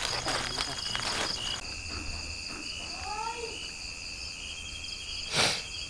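Night insects, crickets among them, chirring steadily in a pulsing chorus. Rustling of footsteps through undergrowth in the first second or so, and a short loud rush of noise about five and a half seconds in.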